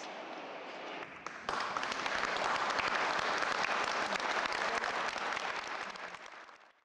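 Audience applauding, swelling in about a second and a half in and fading out near the end.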